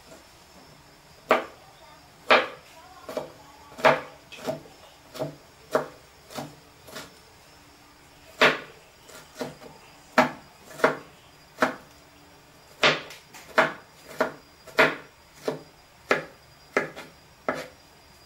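Chef's knife chopping garlic and ginger on a plastic cutting board: sharp, uneven knocks of the blade striking the board, about one or two a second, with a pause of about a second midway.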